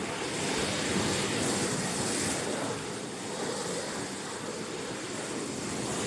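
Sea surf washing in among the rocks of a rocky cove: a steady rush of waves that swells a little about a second in and eases slightly after about three seconds.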